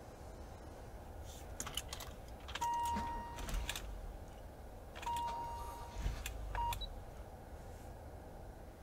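Electronic interference sounds: a few crackling clicks, then two steady high beeps, each about a second long and a couple of seconds apart, and a brief third beep, with clicks around them over a faint low rumble.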